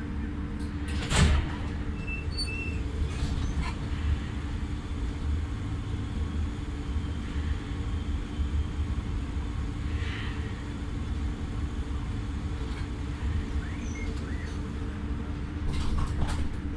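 Passenger doors of a KVB B80D light-rail car opening with a loud clunk about a second in and closing again with knocks near the end, over the steady hum of the standing car. Two short high beeps follow the opening clunk.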